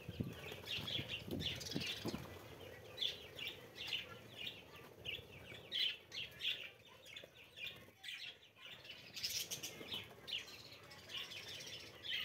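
A flock of budgerigars chattering in many short, quick chirps, with wing flaps from birds taking off in the first couple of seconds.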